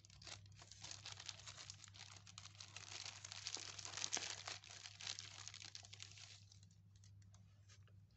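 Clear plastic bag crinkling as the wiring harnesses packed in it are handled, dense and crackly for about six seconds, then thinning to a few scattered crackles.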